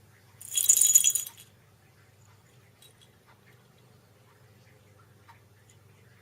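A brief metallic jingle or rattle lasting about a second, bright and high with a ringing tone in it, followed by a few faint ticks over a low steady hum.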